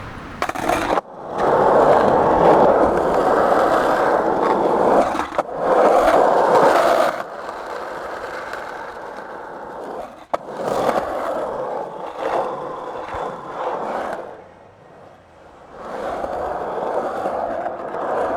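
Skateboard wheels rolling over pavement: a continuous rough rolling rumble that swells and fades, loudest in the first seven seconds and dropping away briefly about fifteen seconds in, with a few sharp clicks along the way.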